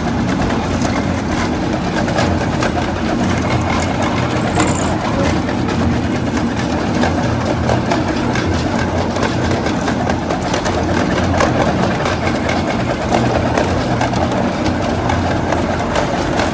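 Train running along the track, heard from on board: a steady low rumble with many small clicks from the wheels on the rails.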